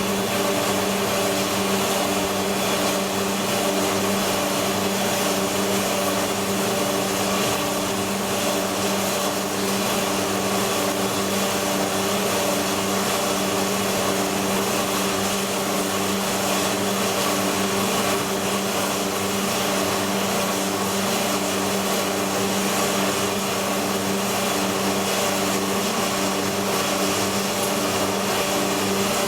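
Asada Beaver 4F ECO band saw running steadily: a constant motor hum with a hiss over it, holding one pitch and level throughout.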